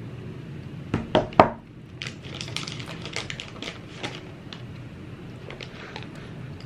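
Three loud knocks about a second in, then a quick run of Apple keyboard keystrokes that thins out toward the end, over a steady low background hiss.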